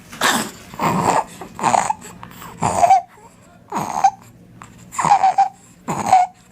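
A child's inspiratory stridor: a harsh, squeaky noise in the throat on each breath in, repeated about seven times at roughly one breath a second. It is a sign of croup, a narrowed upper airway, which calls for referral to a doctor.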